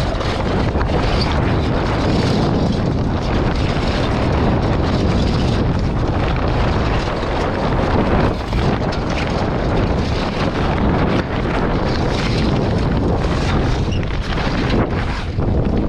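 Wind buffeting the microphone on a sailboat under way, a loud, steady rushing noise that never lets up.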